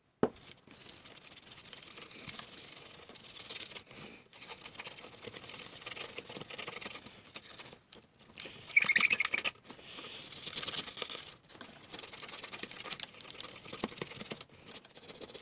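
Rubbing and scratching on the panel of an old Ensign Ful-Vue camera as it is cleaned by hand, a steady rustle broken by short pauses, with a brief louder squeaky stretch about nine seconds in.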